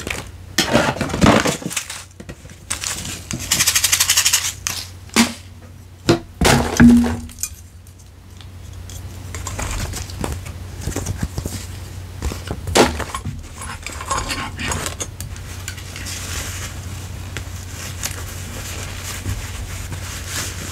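Close-miked unboxing handling sounds: packaging crinkling and rustling, with sharp clicks and taps. They come thick and fast for the first several seconds, then settle into a softer continuous rustle with occasional clicks.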